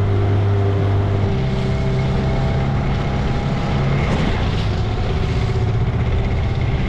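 Boat's engine running steadily as it motors along, its note shifting slightly higher about a second in, over a wash of wind and water noise.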